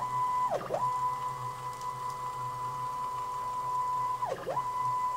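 Stepper motor driving a DIY CNC machine's Z-axis ball screw: a steady high whine that twice drops sharply in pitch and climbs back, about half a second in and again about four seconds in, as the axis slows to a stop, changes direction and speeds up again.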